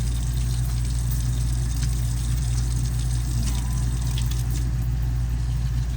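Tap water running as hands are washed at a sink, over a steady low mechanical hum.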